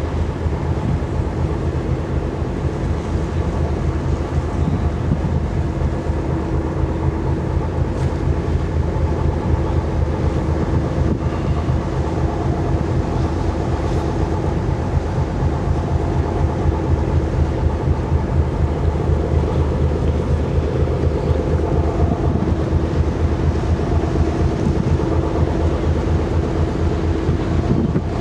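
Car ferry's engines running steadily as the ship comes in to berth: a continuous low mechanical drone with a steady hum over it.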